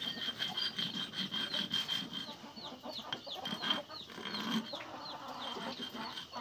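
Cut edge of a metal mesh sheet rasped back and forth on a sharpening stone, a run of scraping strokes that dull the sharp edge. Chickens peep throughout, about two short high falling peeps a second.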